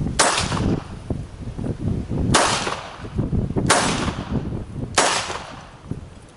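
Four shots from a Polish P-83 Wanad 9x18mm Makarov pistol. The first stands alone, followed by a pause of about two seconds, and the other three come a little over a second apart. Wind rumbles on the microphone throughout.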